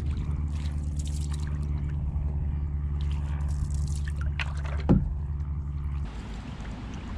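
Water trickling and dripping around the bow of a moving canoe, over a steady low hum that stops abruptly about six seconds in. One stronger short splash-like sound comes just before five seconds.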